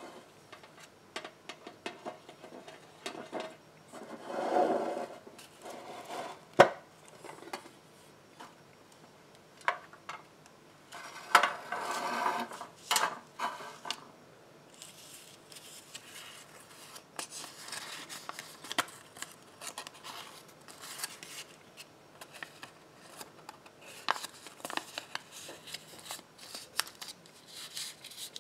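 Close-up handling of a small metal tin with long fingernails: taps and scrapes on the tin, a sharp clack near a quarter of the way in, and rattly scraping as the lid comes off. After that comes continuous crisp rustling of folded paper slips being picked up and unfolded, with small clicks of nails on paper.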